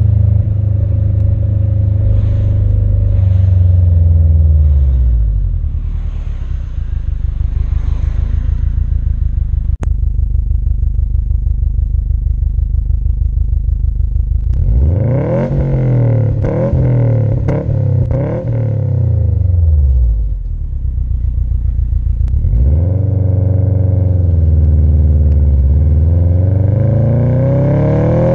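Subaru WRX STI's turbocharged flat-four heard at the tailpipes of its Invidia Q300 exhaust while driving. The revs fall away at first and run low and steady for several seconds, then rise sharply, drop back, and climb again twice more toward the end.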